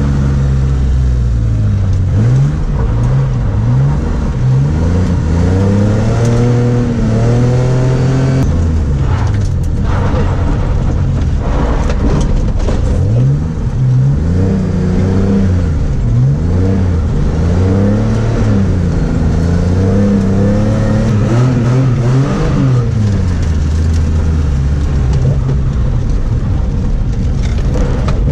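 BMW E30's M30B35 straight-six engine under hard racing use, revving up and dropping back again and again as it is driven through gears and corners. There are a few short knocks along the way.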